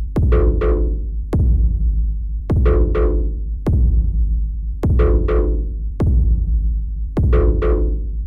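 Live electronic music from synthesizers and a drum machine: a constant heavy bass, a sharp drum hit a little over once a second, and pairs of short synth chord stabs every couple of seconds.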